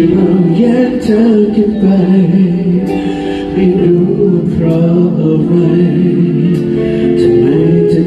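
Live concert music: a male singer sings into a handheld microphone over the band's accompaniment, the voice rising and falling in long held notes.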